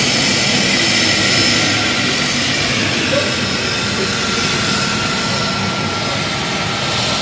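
De Havilland Canada DHC-6 Twin Otter's twin turboprop engines running as it taxis: a steady rush of engine and propeller noise with several high whining tones over it.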